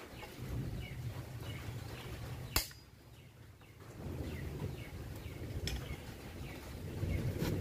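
Hands working at the bolts of a scooter's rear brake disc: low rubbing and handling noise, with one sharp metallic click about two and a half seconds in and lighter clicks near the end.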